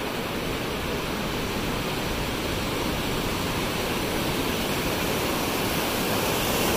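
Ocean surf washing on the beach: a steady rush of breaking waves that builds slowly in loudness.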